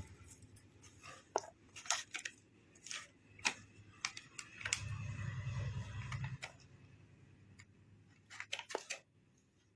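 Handling of small plastic earbud packaging and its charging case: a scatter of sharp clicks and taps, with a low hum for about a second and a half in the middle and a quick run of clicks near the end.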